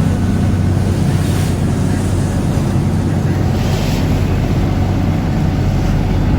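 Lobster boat's engine running steadily at an even pitch, with a hiss of water or wind that swells briefly twice, about a second in and near four seconds.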